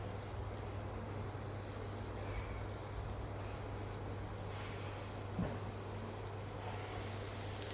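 Faint, steady crackling sizzle of food cooking in a frying pan, over a low steady hum. A single light tap about halfway through.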